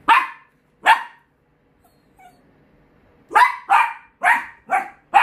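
Dachshund barking at an unfamiliar person: two barks, a pause of about two seconds, then a quick run of five barks.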